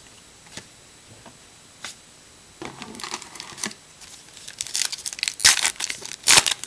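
A couple of light clicks, then a trading card pack's wrapper crinkling in the hands and torn open with two loud rips near the end.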